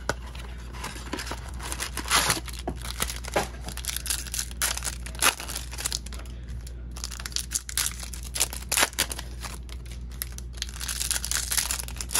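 Topps baseball card packaging being torn open and crinkled by hand: a continuous run of crackling tears and rustles.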